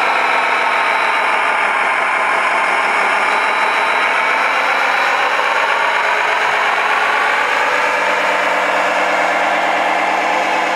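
Radio-controlled Mack dump truck model driving: a steady mechanical running sound whose pitch drifts slowly up and down as its speed changes.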